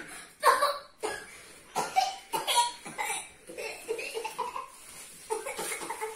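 A child coughing repeatedly in short bursts, mixed with laughter.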